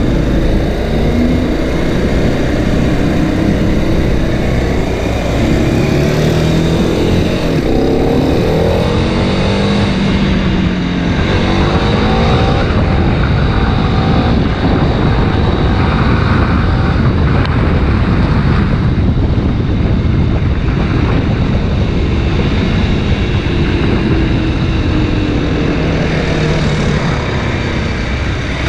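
Kawasaki Ninja 250 RR Mono single-cylinder engine revving up and easing off several times while riding, under heavy wind rush on the helmet or bike-mounted camera microphone.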